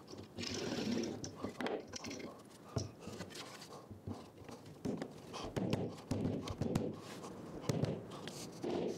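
Wood glue squeezed from a plastic bottle, then plywood pieces knocked and slid together on a wooden workbench, with a series of short wooden knocks and thuds, most of them in the second half.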